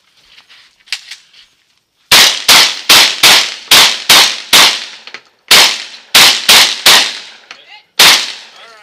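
Rifle firing about a dozen rapid shots, starting about two seconds in. The shots come at roughly two to three a second, with short pauses of about a second partway through and before the last shot, and each one trails off in echo.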